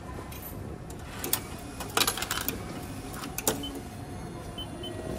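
Subway ticket vending machine handling cash just put in: several sharp clicks and knocks, with three short high beeps in the second half, over steady background noise.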